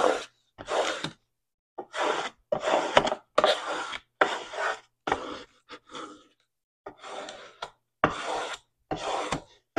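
Plastic scraper tool rubbed in repeated short strokes over transfer tape, burnishing adhesive vinyl onto a paper gift box lid. Each stroke is a dry scratchy rasp, coming about one to two a second with brief gaps between.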